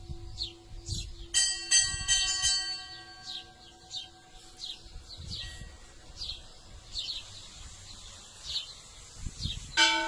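Church bell tolling a death knell: a single strike about a second in whose ringing slowly dies away over several seconds, then the next strike near the end. A bird calls throughout with short falling chirps, about one a second.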